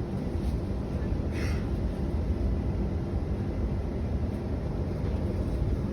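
Steady low rumble of an electric commuter train carriage running along the track, heard from inside the carriage, with a faint steady whine and a brief hiss about a second and a half in.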